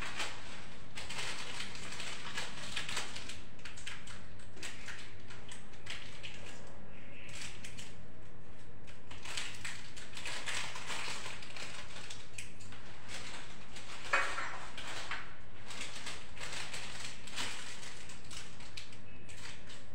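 Clear plastic piping bag crinkling and rustling in irregular surges as it is handled, with a single sharp click about fourteen seconds in.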